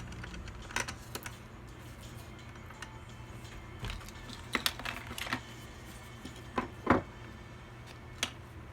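Irregular sharp clicks and knocks, about ten in all, from PC components being handled during assembly, over a low steady hum. The loudest knocks come in the middle and about seven seconds in.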